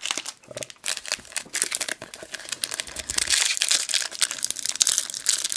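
Shiny foil wrapper of a Panini Euro 2012 trading-card packet crinkling and being torn open by hand, a dense crackle that grows louder in the second half.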